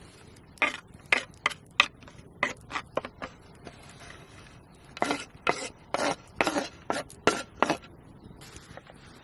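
A series of sharp chopping or knocking strokes: about seven over the first few seconds, a pause, then about seven more, quicker and louder.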